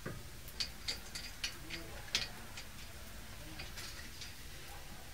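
Light metal clicks and clinks of a brake caliper being fitted over the pads and bracket: about a dozen small ticks, most in the first two seconds and a few more near the end.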